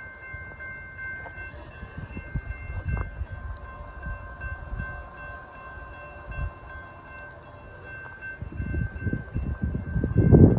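Several steady high ringing tones at a railway, held together and stopping near the end, over low rumbling with wind buffeting the microphone, heaviest in the last couple of seconds.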